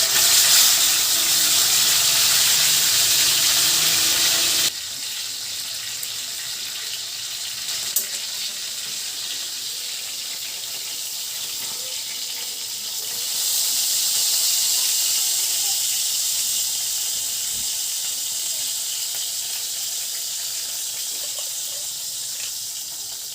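Water running steadily from a tap as fish are washed and cleaned, an even hiss. It drops abruptly to a lower level about five seconds in and swells again about halfway through.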